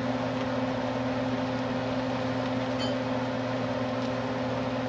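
Kitchen exhaust fan running: a steady electric hum with an even rush of air.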